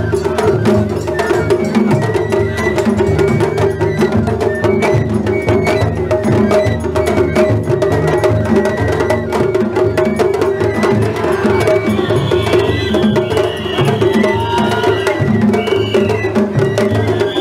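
Japanese festival float music (matsuri bayashi): taiko drums beaten in a fast, steady rhythm, with a high melody playing above them.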